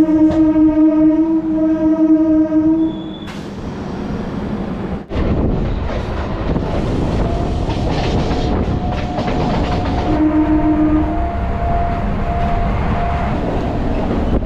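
A train horn gives one long steady blast that ends about three seconds in. Then comes the low rumble and clatter of a MEMU local train running along the track, with a fainter horn tone held through the middle of the later stretch.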